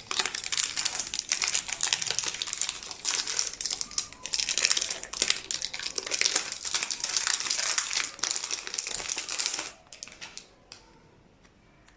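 Packaging crinkling and rustling as it is handled during unboxing, a dense crackle of many small clicks that stops about ten seconds in.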